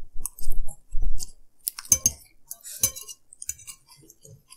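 Metal forks clinking and scraping on ceramic plates during a meal of pad Thai noodles, in a run of short sharp clicks, with a few soft low thumps in the first second or so.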